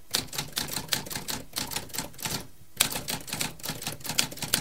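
Typewriter keystroke sound effect, keys clacking in quick irregular succession as text is typed, with a short pause about two and a half seconds in.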